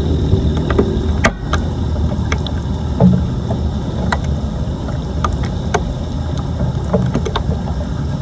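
Floodwater rushing steadily into an unclogged street drain, with scattered sharp clicks and knocks over it.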